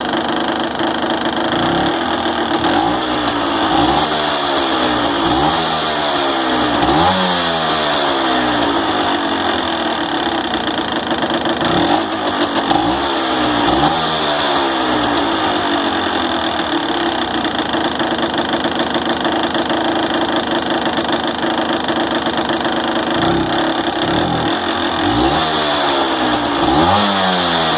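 Honda NSR125 JC22's single-cylinder two-stroke engine running with a rattle from piston slap, the sign of a worn piston and bore. The throttle is blipped in short rising-and-falling revs in several bursts, with steady idling in between.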